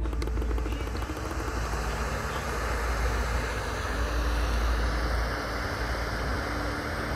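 Steady static hiss from the iHome IBT210 clock radio's FM tuner, played through its speaker while it is tuned between stations.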